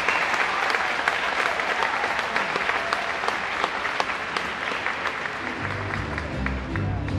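Audience applauding, a dense patter of hand claps. About five and a half seconds in, music starts up underneath, with low sustained notes.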